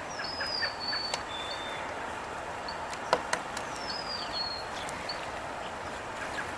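A songbird sings the same short phrase twice, a few seconds apart: a high whistle that slides down and levels into a held note, followed by one or two short notes. A few sharp clicks fall between the phrases, over steady outdoor background noise.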